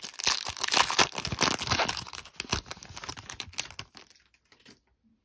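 A shiny foil trading-card pack wrapper being torn open and crinkled as the cards are pulled out. The crackling is dense for about the first four seconds, then dies away.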